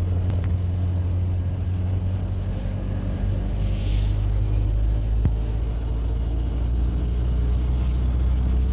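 Steady low engine and road drone heard from inside a car's cabin while driving. A brief rustle of clothing against the microphone comes about four seconds in, and a single sharp click a little after five seconds.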